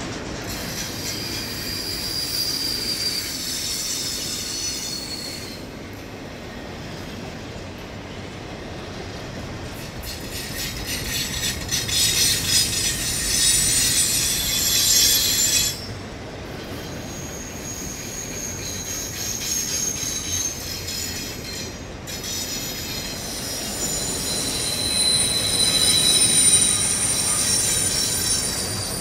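CN freight train cars rolling past with a steady rumble, their wheels squealing in high thin tones that come and go in several stretches. The squeal is loudest about halfway through and again near the end.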